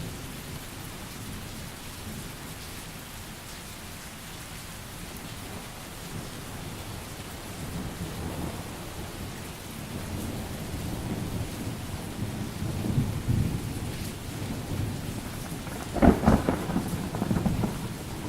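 Steady rain with rolling thunder that builds from about halfway through into a loud crackling thunderclap about two seconds before the end.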